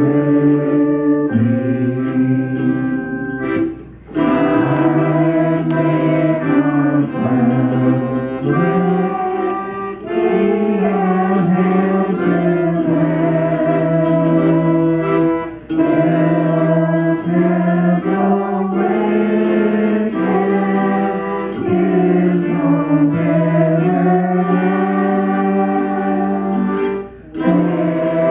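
A small amateur group of older voices singing a hymn together into microphones, accompanied by acoustic guitar and keyboard. The singing is sustained, with brief breaks between lines about every eleven or twelve seconds.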